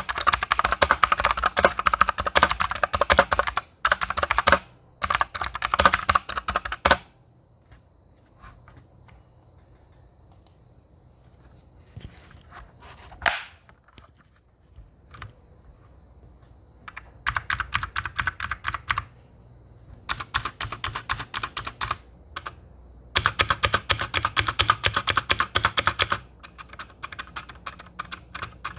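Typing on a mechanical keyboard with BSUN blue clicky switches: fast runs of sharp clicks, breaking off at about 7 s into a long lull with only a few stray keystrokes, then picking up again in bursts from about 17 s.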